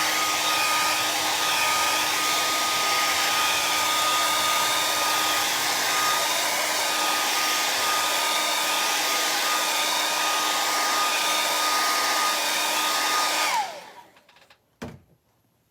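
Hair dryer blowing steadily with a high whine, drying wet paint on a canvas. It switches off about thirteen and a half seconds in, the whine falling as the motor winds down, and a single click follows shortly after.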